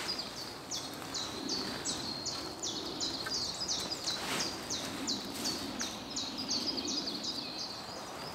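Small songbird calling in a rapid, steady series of short high notes, about three a second, over faint forest background noise.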